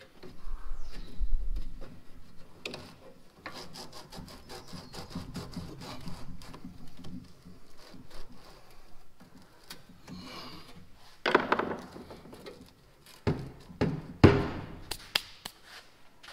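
A screwdriver scraping and rubbing against the rusted sheet metal of a Farmall Super M tractor radiator and its fan shroud, in an irregular run of scrapes and small clicks. Near the end come a few louder sharp knocks of metal.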